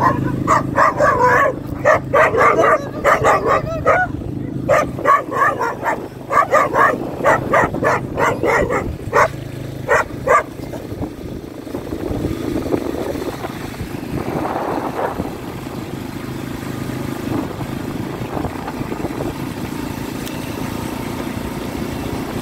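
A dog barking hard and fast, about two barks a second, over the steady running of an ATV engine with tyre and wind noise. The barking stops after about ten seconds, leaving the quad's engine and road noise.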